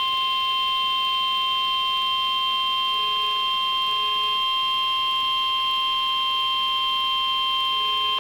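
NOAA Weather Radio 1050 Hz warning alarm tone: one steady, unbroken high tone at an even level that cuts off sharply at the end. It signals that a warning message follows.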